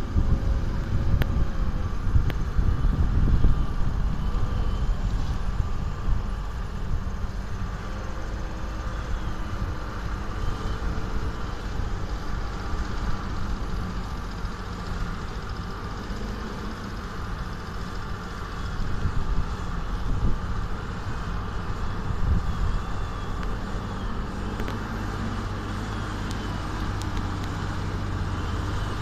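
Diesel tractor engine running steadily under plowing load, a continuous low rumble with a steady hum over it.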